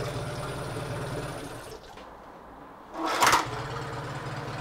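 Yamaha F9.9B four-stroke outboard running with a steady pulsing beat. Its sound falls away a little under two seconds in, and after about a second a short, loud burst of noise is followed by the engine running again.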